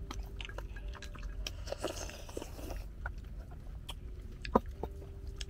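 Two people slurping and chewing rice porridge from small bowls, with scattered small clicks and one sharper click about four and a half seconds in.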